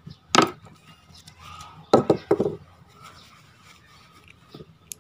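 Handling sounds from a spinning reel being serviced by hand. There is a sharp knock about half a second in, a cluster of knocks and rubbing around two seconds in, then quieter rubbing as a part is wiped with tissue.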